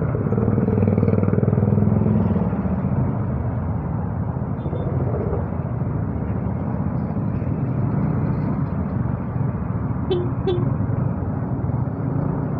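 Motorcycle engine running steadily in slow traffic, with road noise, picked up by an earphone used as a microphone. Two short beeps sound about ten seconds in.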